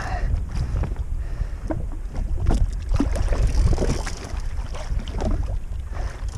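Wind buffeting the microphone over water sloshing and splashing against a jet ski on the open ocean, with a steady low rumble and scattered short splashes.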